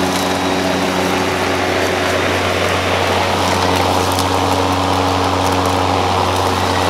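RYOBI 40-volt brushless 20-inch battery lawn mower running while mowing grass: a steady electric motor hum over a rushing noise.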